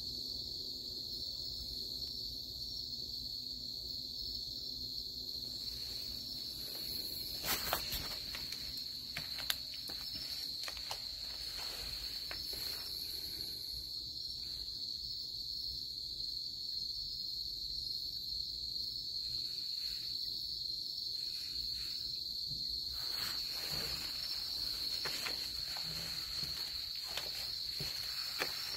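A steady, high-pitched chorus of night insects trilling without a break. Some rustling and a few sharp clicks come through about a third of the way in and again near the end.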